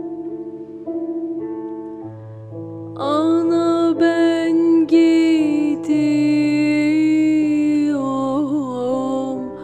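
Slow dance music of long held notes over a sustained low bass line, growing fuller and louder about three seconds in, with a wavering held note near the end.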